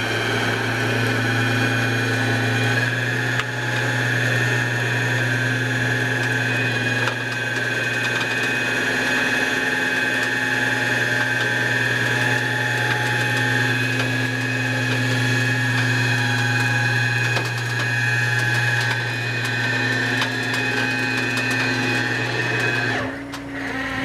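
A flatbed tow truck's PTO-driven hydraulic winch runs with a steady whine over the truck's engine as it pulls a pickup up the bed. The whine stops about 23 seconds in when the winch is shut off.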